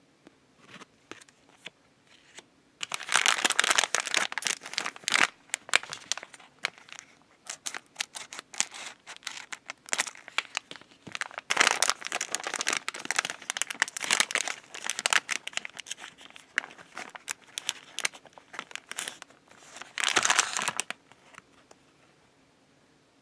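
Plastic snack wrapper crinkling and tearing as it is opened by hand. The crackling comes in bursts starting about three seconds in, with a loud burst near the end.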